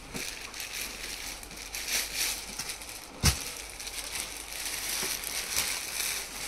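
Clear plastic packaging crinkling and fabric rustling as a ladies' suit is unwrapped and spread out by hand, with one dull thump about three seconds in.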